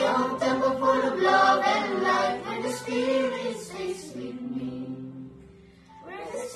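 A family group of children and adults singing a song together, holding long notes. The singing dies away about five seconds in, and voices start again near the end.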